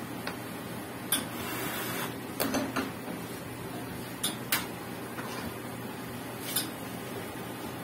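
Commercial espresso machine being readied for a shot: a handful of sharp metal clicks and knocks as the portafilter is locked into the group head, the panel button is pressed and a glass is set on the drip tray grate, over a steady hum.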